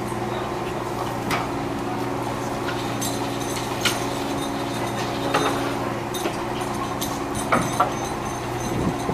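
Steady low hum of a fishing vessel's engine and deck machinery, with sharp metallic knocks and clanks of gear at the rail every second or two, two in quick succession near the end.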